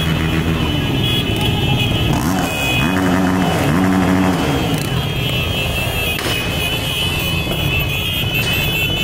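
Many motorcycles running as they roll past, with one engine revved up and back down twice about three seconds in. A steady high-pitched whine runs over them, dropping out during the revving.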